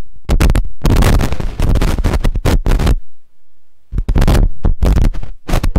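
Loud crackling, scratching noise from a lecture microphone and its sound system, in two stretches with a pause of about a second between; the lecturer puts it down to a feedback problem.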